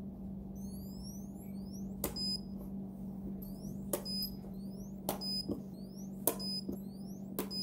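kWeld capacitor-discharge spot welder firing on nickel strip laid on A123 26650 LiFePO4 cells: about five sharp weld cracks a second or so apart, each followed by a short high electronic beep, over a steady low hum.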